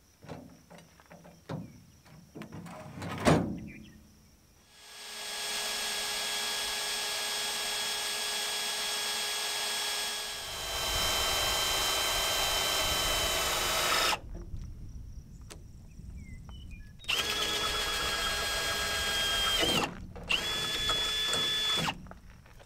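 A sharp knock about three seconds in, then a cordless drill running under load, boring through a rough-sawn pine stake and bed rail. It runs once for about nine seconds, getting louder partway through, then after a pause twice more for a few seconds each, with a steady motor whine during each run.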